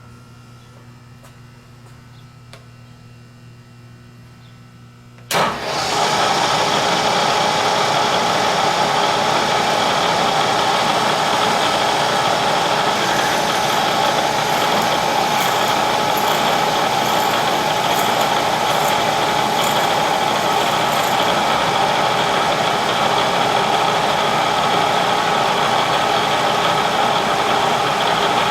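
Bridgeport milling machine's spindle switched on about five seconds in, then running steadily while a clearance hole is drilled. Before it starts there is only a low hum.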